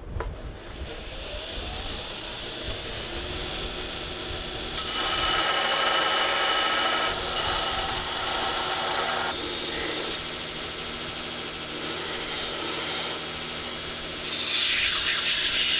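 Belt grinder motor spinning up, rising in pitch, then running steadily while a flat piece of steel is pressed against the abrasive belt in several passes. The grinding grows louder with each contact, in a long pass about five to nine seconds in and again near the end.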